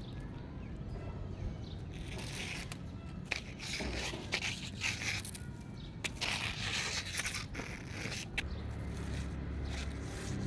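Irregular rustling and scraping noises with a few sharp clicks, over a low steady hum.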